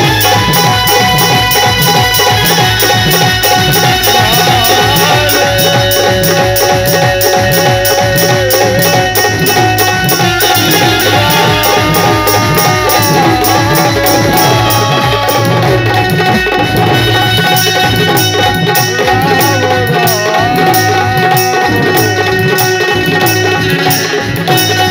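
Live rai folk music: a fast, even hand-drum beat under a melody of long held notes that glide between pitches.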